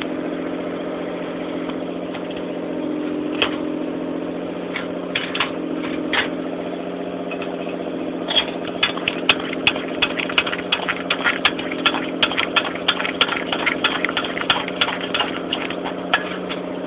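Coleman camp stove's fuel tank being hand-pumped: quick clicks, about three or four a second, start about halfway through as pressure is built up because the stove has too little pressure. Under it runs a steady low hum.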